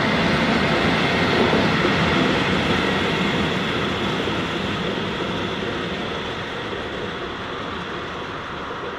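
Train rolling past and moving away, its running noise fading steadily.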